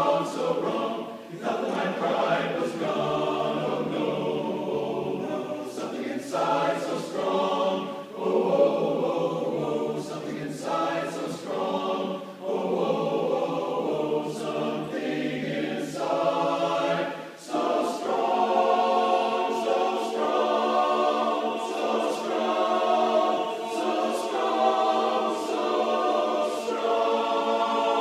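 Men's barbershop chorus singing a cappella in close harmony, with short breaks between phrases and long held chords in the last ten seconds.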